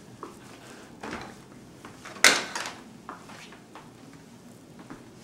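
Kitchen handling sounds: one loud, sharp knock about two seconds in, then a few lighter knocks and rustles.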